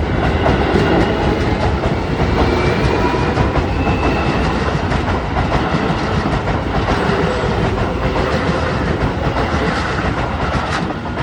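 Keio Line electric train running past at close range: a steady rumble, with the wheels clacking over the rail joints.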